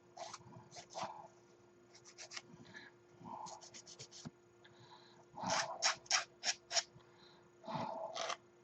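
Small plastic model-kit part being worked by hand as it is removed from its sprue: a series of short scratchy clicks and scrapes. The loudest run, about five sharp clicks, comes a little past halfway.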